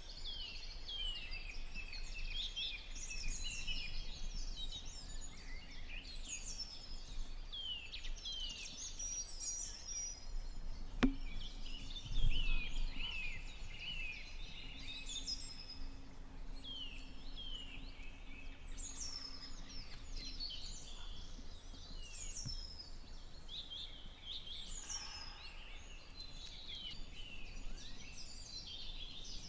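Songbirds singing in a dawn chorus: many short, high, downward-sliding whistled phrases from several birds, repeating every second or two. About 11 seconds in there is a sharp click, followed about a second later by a brief low thump, the loudest sound.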